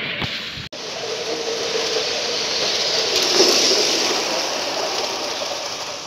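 Large-scale model of a red high-speed train running past on its garden-railway track: a rushing rumble of wheels on rails that cuts out for an instant under a second in, swells to its loudest about three and a half seconds in, then fades as the train moves away.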